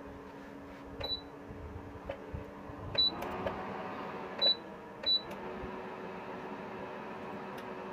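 Four short, high electronic beeps from the Rowenta electric heater's control panel, over a steady hum that shifts in pitch just after the second beep.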